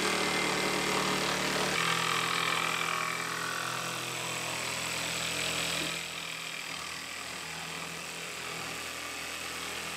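Ryobi cordless jigsaw running as it cuts through plywood. The motor's pitch shifts about two seconds in, and the sound drops quieter about six seconds in.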